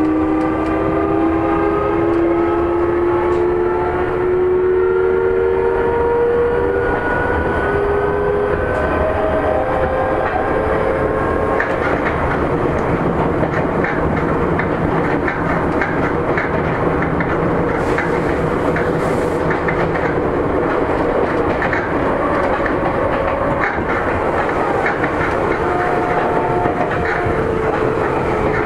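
Seibu 9000 series electric commuter train under way. A motor whine of several tones climbs in pitch for the first several seconds as it accelerates, then settles into steady running noise with rattling and clicks of the wheels over rail joints. Whining tones come back briefly near the end.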